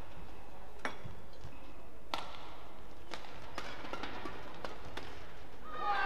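Badminton rackets striking the shuttlecock in a doubles rally: about half a dozen sharp hits, roughly half a second to a second apart. A louder, pitched burst of sound starts right at the end as the point finishes.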